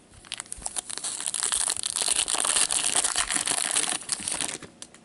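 Foil hockey card pack wrapper crinkling and crackling as gloved hands tear it open, continuous for about four seconds and stopping shortly before the end.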